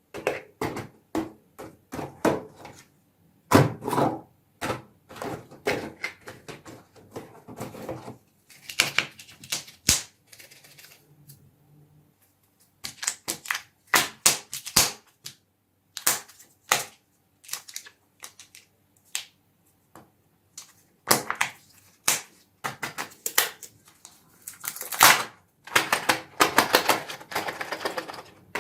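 Candy packaging being handled and unwrapped by hand: irregular sharp clicks and taps of plastic, with bursts of wrapper crinkling and short pauses between.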